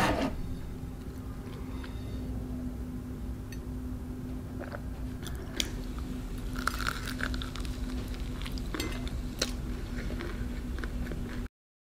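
Biting into and chewing a flaky almond croissant: crisp crackles and crunches of pastry and flaked almonds, mostly in the second half, over a steady low hum. A short, loud knock right at the start.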